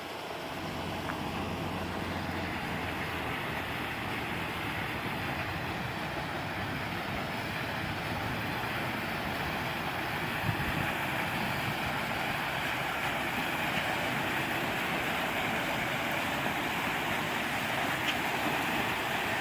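Steady rushing of a waterfall, growing a little louder over the first couple of seconds.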